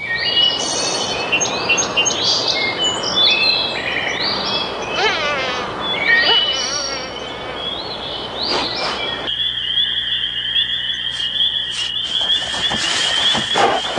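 A chorus of animal calls: many short rising and falling chirps, then from about nine seconds in a steady high trill.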